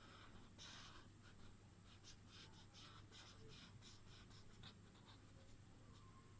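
Faint scratching of a drawing tool on paper, a quick run of short strokes that stops about three-quarters of the way through, over a steady low hum.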